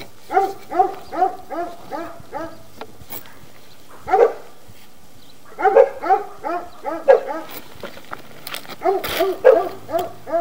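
A dog barking in quick runs of several barks, two or three a second, with short pauses between the runs. A single sharp knock comes near the end.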